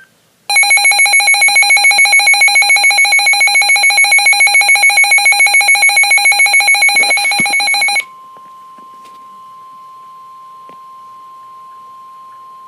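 Weather alert radio sounding its alarm for a severe thunderstorm warning: a loud, rapidly pulsing alarm tone for about seven seconds, which about eight seconds in gives way to a quieter steady single-pitch tone, the NOAA Weather Radio warning alert tone that comes before the spoken warning.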